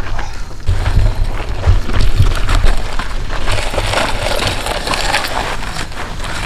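Crunching and rustling of footsteps through dry brush and leaves, over a low wind rumble on the microphone that starts about a second in.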